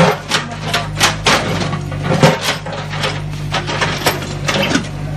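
Mini excavator's engine running steadily while its steel bucket scrapes and digs through broken brick rubble, the bricks knocking and clattering against the bucket and each other many times.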